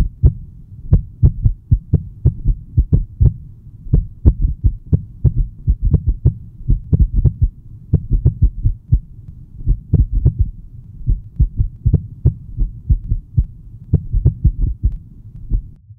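A heartbeat sound: low, quick thumps, about three or four a second and slightly uneven.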